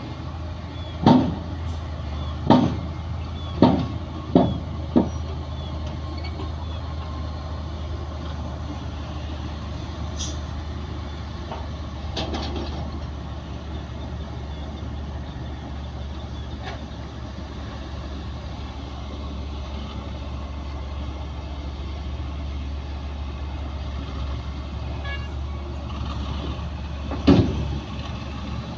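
Bulldozer's diesel engine running with a steady low drone, broken by five sharp knocks over the first five seconds and one more near the end.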